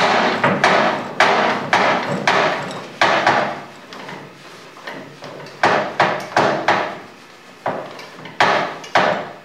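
Repeated sharp metal-on-metal clanks with a short ring, about fifteen in irregular pairs and runs with a lull near the middle, as a combination wrench is worked on a nut on a South Bend lathe's lead screw.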